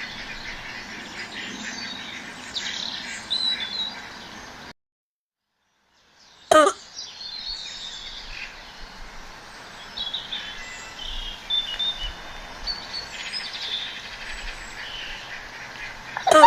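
Birds chirping and singing. The sound drops out to complete silence for about a second and a half around five seconds in, and is then followed by a single short, loud pitched cry.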